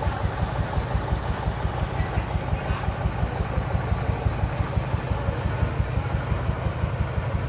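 Three-wheeled dump truck's engine running with a steady, rapid, even low chugging as the truck reverses slowly.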